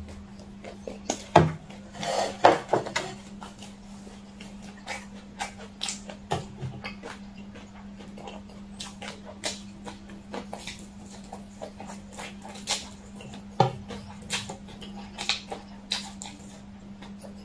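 Close-miked mouth sounds of eating spicy fire noodles: wet chewing smacks and clicks, with a louder slurping stretch about two to three seconds in.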